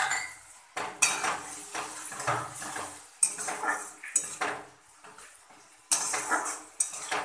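Metal spatula scraping and stirring against a metal kadai (wok) as chopped tomatoes are worked into a frying spice paste. The strokes are repeated, with a brief pause a little past the middle.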